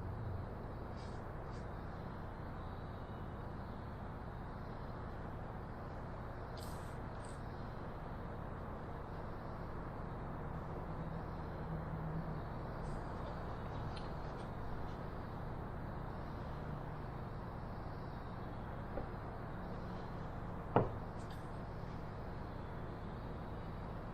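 Steady low hum of workshop background noise, with a few faint light taps and one sharp knock about 21 seconds in.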